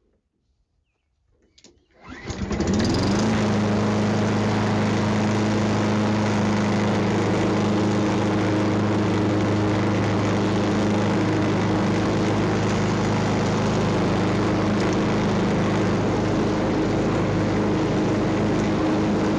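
John Deere JS48 push mower's Briggs & Stratton engine starting about two seconds in, quickly picking up speed, then running steadily on its test run after a service with fresh oil and filter.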